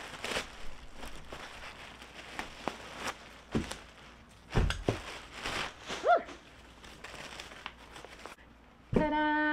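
Clear plastic packaging bag crinkling and rustling as a backpack is unwrapped by hand. Near the end a woman's voice holds one long steady note.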